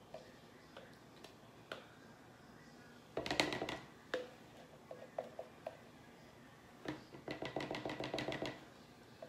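Spatula scraping and stirring soap batter in a plastic measuring cup. It comes in two bursts of quick clicking strokes, a short one about three seconds in and a longer one about seven seconds in, with a few faint taps between.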